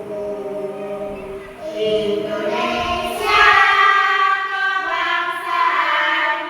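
A group of voices singing together in long, held notes, growing louder about halfway through.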